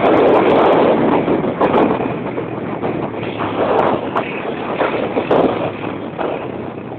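A vehicle driving fast across a bumpy grass field, with engine and wind noise on the microphone and short knocks from the bumps. The noise eases off toward the end.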